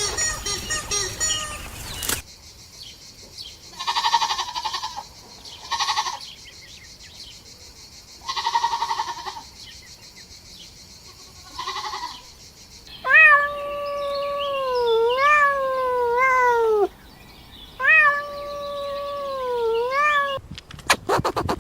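Goats bleating: several short bleats, then two long, wavering bleats that rise and fall in pitch. Near the end a rapid run of sharp clicks follows.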